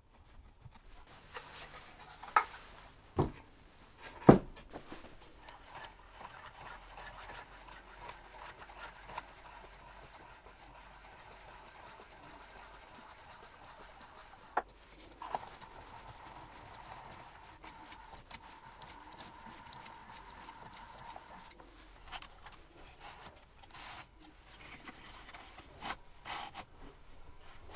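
Handling noise from a homemade plywood XY slide table: three sharp knocks in the first few seconds, then a long run of wood and metal sliding and rubbing with scattered clicks as the freshly oiled table is moved back and forth on its stainless steel rods.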